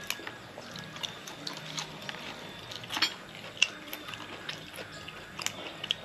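Scattered small clicks and snaps as sprigs of fresh green vegetable are pinched and torn apart by hand, with a few sharper clicks about three seconds in.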